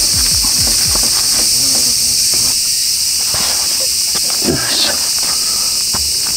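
Steady, shrill chorus of summer insects, with crinkling plastic wrap and light clicks and knocks as a wrapped package is handled and set into a styrofoam box.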